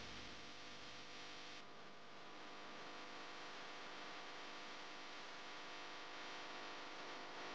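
Faint steady hum and hiss: room tone, with no clear sound from the fondant work.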